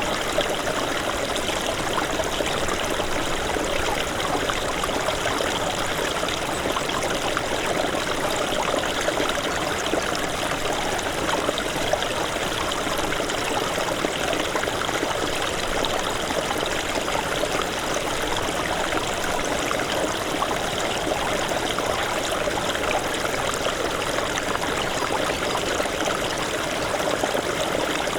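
A small snowmelt stream burbling steadily over rocks, an even, unbroken rush of running water.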